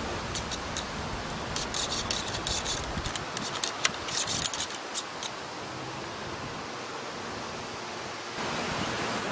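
Cleaning rod being pushed and pulled through a Browning Gold Hunter semi-automatic shotgun barrel: scratchy rubbing strokes come in two clusters in the first half, over steady wind noise.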